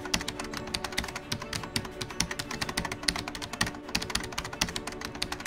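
Keyboard typing sound effect: rapid, irregular key clicks over soft background music.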